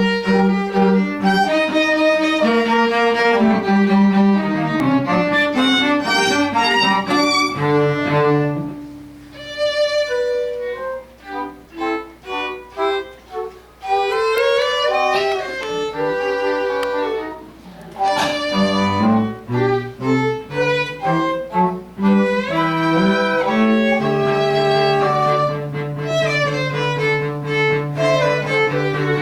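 Bowed string instruments, a violin over a lower cello line, playing classical music. The middle stretch turns softer with short, separate notes, and a low note is held under the melody over the last few seconds.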